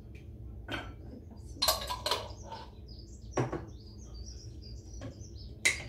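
Spoon and glass jar clinking and knocking against a glass blender jug, five sharp knocks in all, as chopped parsley is spooned in. Small birds chirp in the background.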